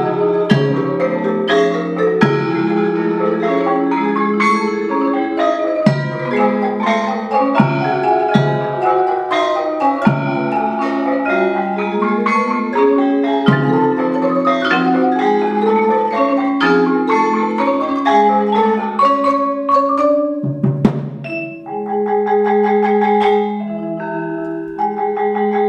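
Mallet percussion ensemble of marimbas and vibraphone playing fast interlocking patterns in Balinese kebyar style, with low accented strikes every second or two. About twenty-one seconds in the texture thins and gives way to longer, ringing held notes.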